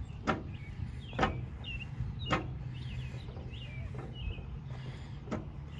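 Sharp clacks of a skateboard against concrete, five in all at uneven gaps of about a second, over a steady low rumble, with birds chirping in the middle.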